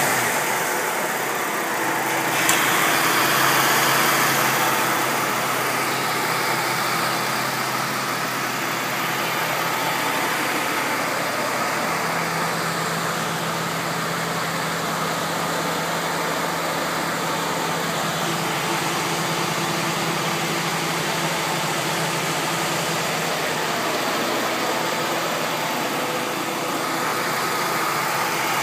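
Jeep Liberty engine idling steadily, with a brief rise in engine sound about two and a half seconds in.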